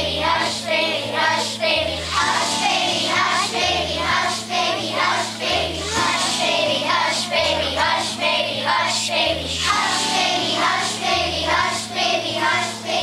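Children's choir singing a song together over an instrumental accompaniment with a steady, regularly changing bass line.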